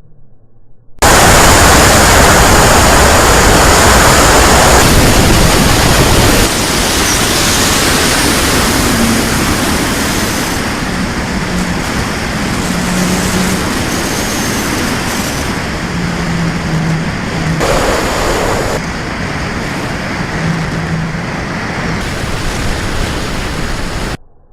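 Loud rushing wind noise over the microphone of a camera flying with an RC plane. It starts abruptly about a second in, eases slightly after about six seconds and cuts off abruptly near the end.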